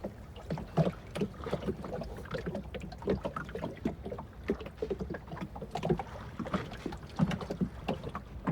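Irregular light knocks and taps aboard a small fishing boat, several a second.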